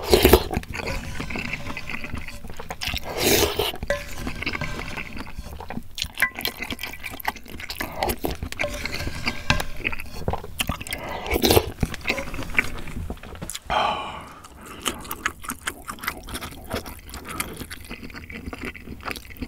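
Ramyeon broth slurped from a wooden spoon, a few loud sips, near the start, about 3 s in, around 11 s and 14 s. Between them come many small clicks and scrapes of the wooden spoon against the pan.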